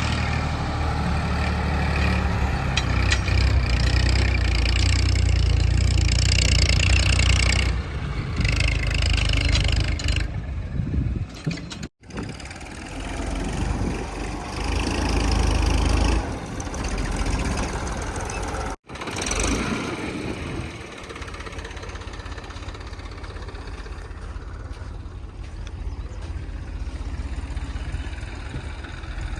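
JCB 3DX backhoe loader's diesel engine running and revving under load while digging and loading, heard across several clips joined by abrupt cuts. It runs heaviest in the first third and settles to a steadier, quieter running in the last part.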